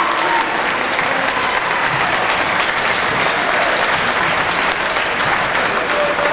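Spectators in a gymnasium applauding steadily, many hands clapping at once.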